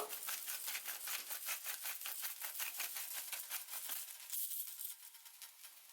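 Pepper mill being twisted to grind peppercorns: a rapid run of gritty clicks that stops about four seconds in.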